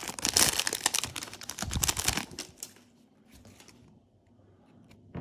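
A foil Yu-Gi-Oh booster pack wrapper crinkling as it is torn open, a dense crackle for about two and a half seconds, then only a few faint handling clicks.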